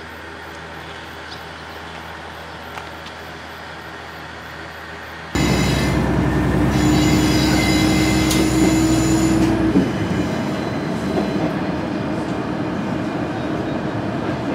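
KiHa 110 diesel railcar: a low steady hum at first, then loud running noise from inside the moving railcar, with engine and wheel-on-rail noise. A steady whine is heard for a few seconds in the middle.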